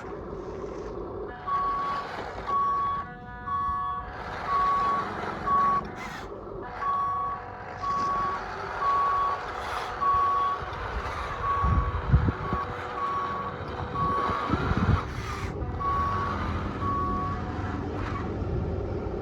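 A vehicle reversing alarm beeping steadily, about one beep a second, over a continuous low mechanical rumble. Two heavy thumps come about twelve and fifteen seconds in.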